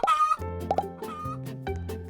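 A brief chicken cluck at the very start, then light children's-style background music with a steady bass line and short plucked notes.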